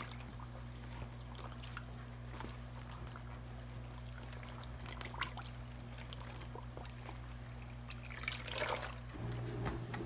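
Wet wool fabric squeezed and pressed by a gloved hand in a tub of hot dye water: faint trickling and sloshing as water runs out of the cloth, with a few small splashes and a louder one near the end.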